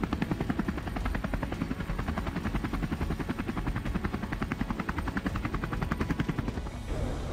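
Helicopter rotor blades beating in a fast, even chop, which stops near the end.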